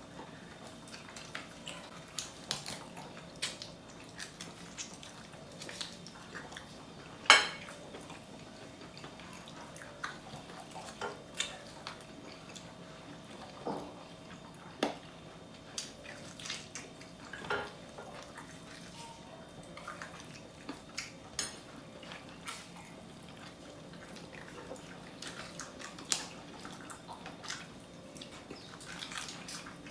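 Juices and fat dripping and spitting from a turkey roasting in an oven: irregular light ticks and pops every second or two, one louder pop about seven seconds in, over a faint steady hum.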